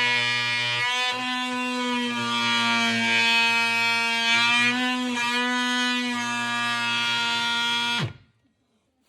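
DeWalt oscillating multi-tool running and cutting, a steady high buzz whose pitch wavers slightly as the blade loads. It cuts off suddenly about a second before the end.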